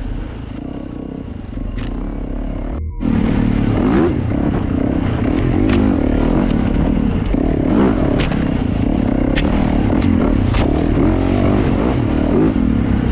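Yamaha YZ450F dirt bike's single-cylinder four-stroke engine revving up and down through a tight trail, louder from about three seconds in. Branches and brush scrape and click against the bike and camera.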